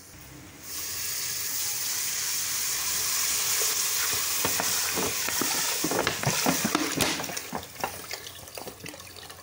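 Water poured from a plastic bottle into hot oil and fried onion-spice masala in a pressure cooker pot, setting off a loud hiss of sizzling that starts suddenly about half a second in. Splashing and ladle clicks against the pot follow in the middle, and the sizzle dies down near the end as the water cools the oil.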